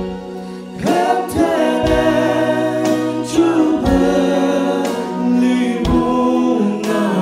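Man singing a gospel song solo into a microphone over sustained accompaniment chords; his voice comes in about a second in with gliding, held notes.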